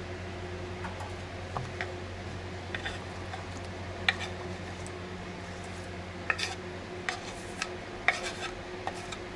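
A kitchen knife scraping chopped vegetables off a wooden cutting board into a bowl: scattered light scrapes and taps, busier in the second half, over a steady low hum.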